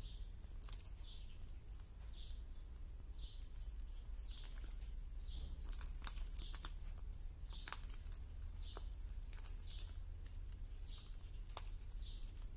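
Falcon tearing flesh from a quail on a glove: scattered sharp tearing and crackling clicks. A faint high chirp repeats about every 0.7 seconds over a steady low hum.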